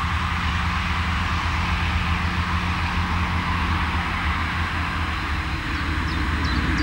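Vintage Scania-Vabis bus's diesel engine pulling up a hill: a steady low rumble that holds its level. A bird chirps a few times near the end.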